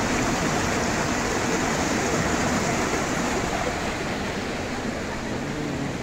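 River water rushing over boulders in a small cascade: a steady, even rush that eases slightly toward the end.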